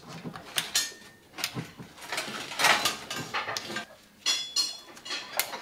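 A hand tool prying and scraping at a steel band clamp on a CV axle boot, making irregular metallic clicks, clinks and scrapes, with a short metallic ring about four seconds in.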